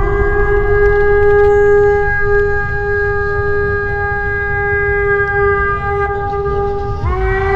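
A loud, steady, trumpet-like blare in the sky, held on one note for about seven seconds. About seven seconds in, a fresh blast starts with a short upward swell in pitch. A low rumble runs underneath.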